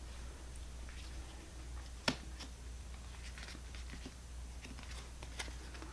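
Quiet handling of oracle cards on a cloth-covered table: faint light taps and slides as a card is moved, with one sharper tap about two seconds in, over a low steady hum.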